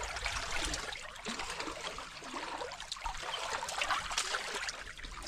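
Sea water washing and trickling among shoreline rocks, a steady crackling wash of water.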